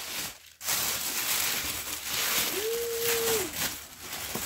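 Tissue and packing paper rustling and crinkling as a wrapped bag is unwrapped and lifted out of a cardboard box. A short steady tone, like a hummed note, comes in about three seconds in.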